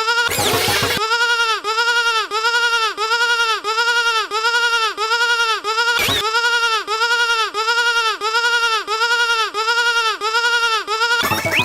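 A sheep bleat sound effect repeated over and over in a tight loop, about two and a half short bleats a second, each rising and falling in pitch. The loop is broken by a brief burst of other noise just after the start, once around the middle and again at the very end.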